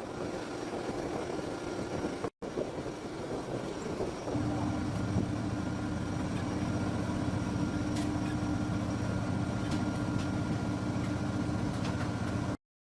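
Ceiling fan with a freshly rewound motor coil running on test: a steady hum that settles and grows a little louder about four seconds in, then cuts off abruptly near the end.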